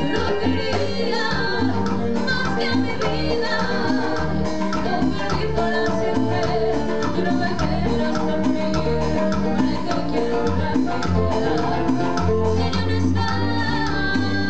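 Live Latin tropical dance band playing: a woman sings into a microphone over keyboard, electric guitar and drums with a steady beat.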